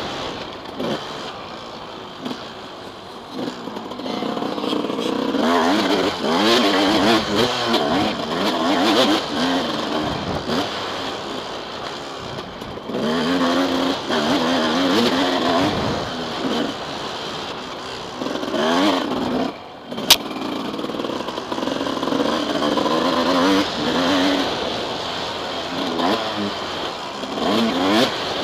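Suzuki RM250's single-cylinder two-stroke engine revving hard and backing off again and again while the motocross bike is ridden. A single sharp click about two-thirds of the way through.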